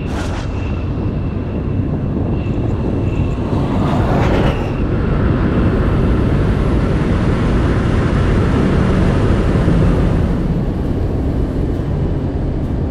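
Genovation GXE electric supercar at very high speed, past 200 mph: a steady deep rush of wind and tyre noise that grows louder over the first few seconds and then holds, with a thin steady high whine in the first few seconds.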